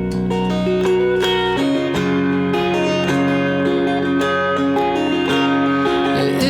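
Instrumental passage of a song: a plucked string instrument playing sustained notes, with no singing.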